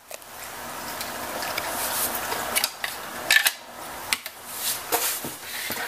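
Rustling and light knocks of items being handled and moved about on a tabletop, with a few sharp clicks scattered through.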